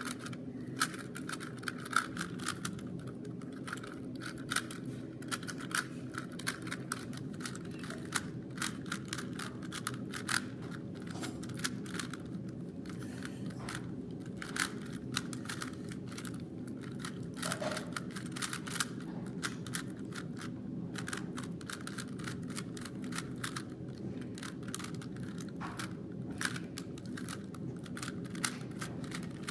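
Plastic 3x3 Rubik's cube being turned rapidly in a speedsolve: a fast, irregular stream of clicks and clacks as the layers snap round, over a steady low background hum.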